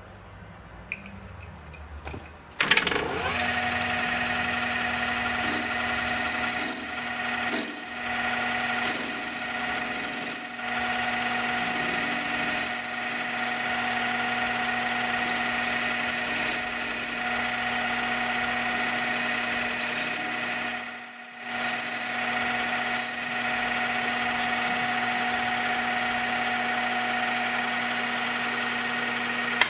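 Emco Maximat V10-P metal lathe starting up about two and a half seconds in and running steadily, after a few light clicks as the tool post is set. A high-pitched squeal comes and goes in several stretches as a boring bar cuts the inside of a steel EMT conduit tube spinning in the chuck.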